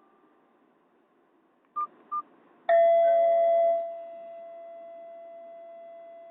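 A Nokia 216's speaker playing a Nokia 7230 ringtone: two short beeps, then a single bell-like chime note that rings loud for about a second and slowly fades away.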